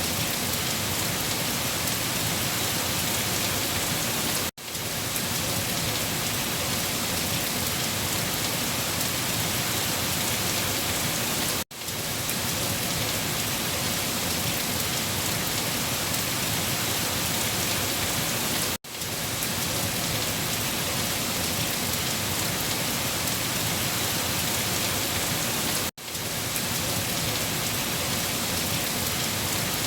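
Heavy rain falling steadily on leaves. The sound drops out briefly four times, about seven seconds apart, each time fading back in.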